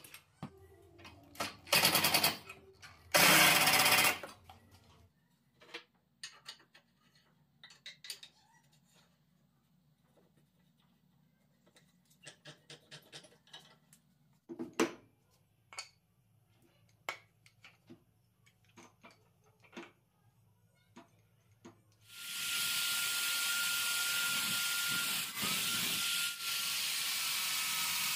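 A cordless impact driver hammers screws home in two short bursts within the first few seconds, followed by scattered light clicks of metal parts being handled. From about six seconds before the end, a drill bit bores through a steel flat bar with a steady whine that dips in pitch twice as the bit loads up.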